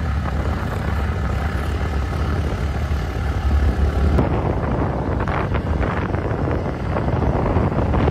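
Wind buffeting the microphone on a moving motorcycle, with the bike's running engine and road noise underneath; it grows a little busier about halfway through.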